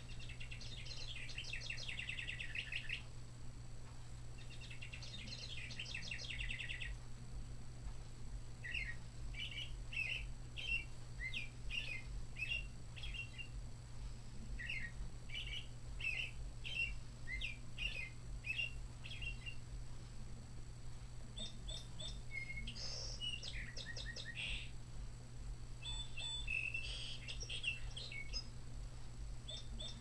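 Recorded bird songs from a National Audubon Society quartz singing bird clock, in its low-pitched version, played through the clock's small speaker. One bird sound follows another: two rapid trills, then a long series of short chirps, then more varied calls near the end.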